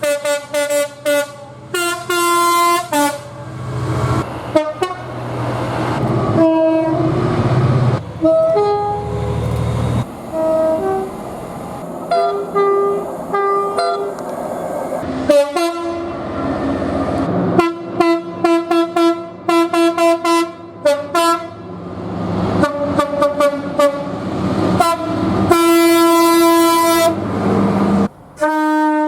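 A run of train horn blasts from several trains: bursts of short toots, a stretch of alternating two-tone notes, and a longer held blast near the end, with the rumble of moving trains between the blasts. The clips change abruptly from one horn to the next.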